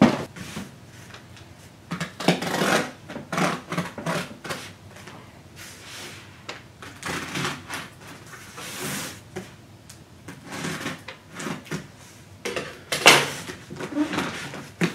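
Cardboard shipping box being handled on a wooden desk: scattered knocks, scrapes and rustling of the box and its tape, with a louder knock near the end as it is set down.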